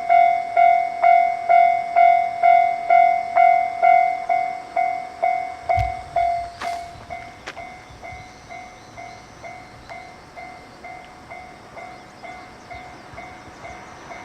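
Japanese railway level-crossing alarm ringing its repeated 'kan-kan' strikes, about two and a half a second, warning of an approaching train. It is loud for the first six seconds and then carries on more quietly, with a single thump about six seconds in.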